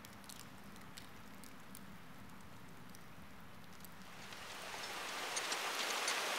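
Quiet soundtrack ambience with a faint low hum. Over the last two seconds a steady hiss fades in and grows louder.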